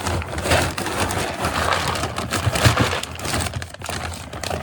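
Dry alfalfa pellets rattling and crunching as a scoop is worked through them, a dense continuous clatter.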